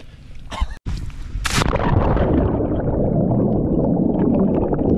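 Muffled underwater rushing and bubbling picked up by a submerged camera in churning, bubble-filled water. It begins with a sudden loud burst about a second and a half in and then runs on as a dense, dull rumble.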